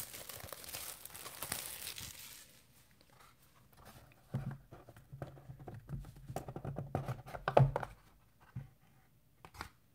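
Plastic shrink wrap crinkling and tearing as it is stripped off a sealed trading card box, for about two and a half seconds. Then quieter rubbing and knocks as the cardboard box is handled and its lid lifted off, with one sharper knock a little after seven seconds in.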